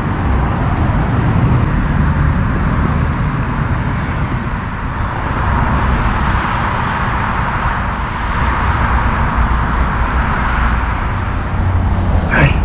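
Steady road traffic noise, a low rumble with tyre hiss that swells and eases as vehicles go by, and a brief sharp sound near the end.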